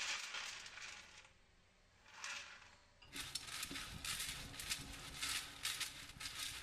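Skinned peanuts poured from a bowl onto a baking tray, a pattering rattle that stops about a second in. After a short pause, hands spread the peanuts across the tray in a dense run of small clicks.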